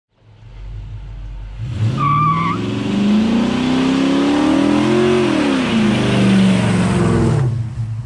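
Car engine revving up from idle and falling back to idle, with a short wavering squeal about two seconds in.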